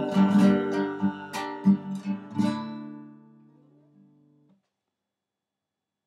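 Acoustic guitar strumming the closing chords of a song, several strokes over the first two and a half seconds, then the final chord rings and fades away to silence by about four and a half seconds in.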